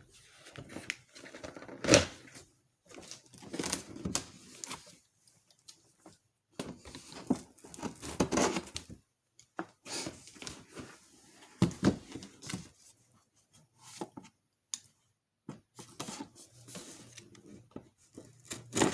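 A box and its packaging being opened by hand: irregular rips, rustles, scrapes and knocks, with short pauses between them.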